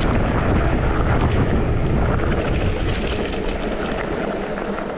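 Wind buffeting the microphone and tyres rumbling over the dirt trail as a mountain bike descends at speed. The low rumble eases about three seconds in.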